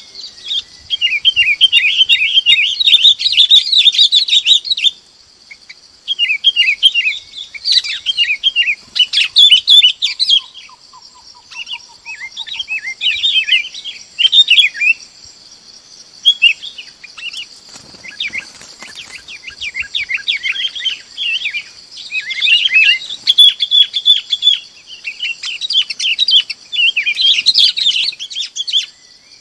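Bulbuls giving flock calls: repeated bursts of quick, bubbly chattering notes lasting a few seconds each, with short pauses between, over a steady high hiss.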